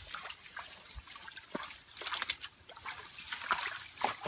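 Bare feet wading through shallow muddy water, with irregular small splashes and sloshing at each step and water trickling in between.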